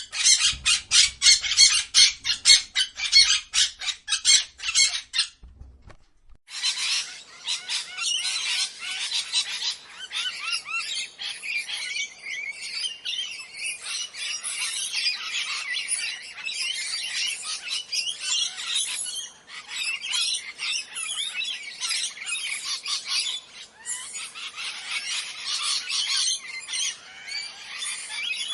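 Parrots squawking: first a rapid run of harsh repeated calls, about three or four a second, then after a short pause a dense, unbroken mass of overlapping squawks and chatter.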